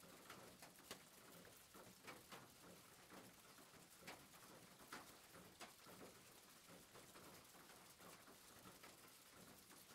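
Near silence: a faint hiss with a few soft, scattered clicks.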